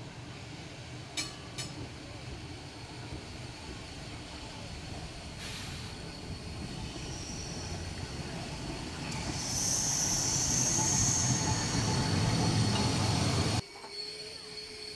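A 1936 Liverpool double-deck electric tram rolling along the rails toward and past the listener, its running noise building steadily, with high-pitched wheel squeal on the curve at its loudest. Near the end the sound cuts off suddenly to a quieter, steady hum.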